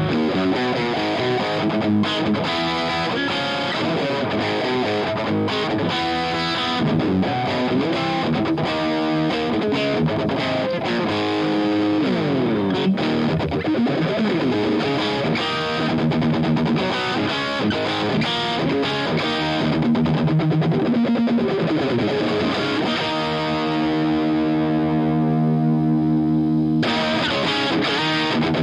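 Distorted electric guitar played through an Omega Series Micro battery-powered guitar amplifier, recorded direct with a Greenback speaker-cabinet impulse and reverb added. Quick runs of single notes, a sliding pitch sweep about halfway, and held notes near the end.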